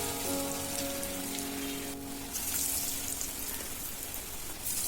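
Vadas of ground soybean and spinach dough frying in hot oil in a pan, a steady sizzle, with soft background music under it.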